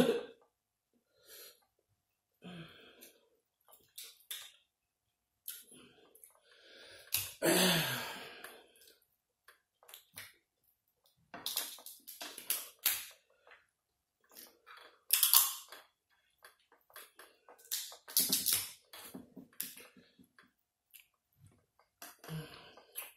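Close-miked eating of a seafood boil: chewing and lip-smacking in short bursts, with sharp crackles as shrimp and crab are pulled apart by hand.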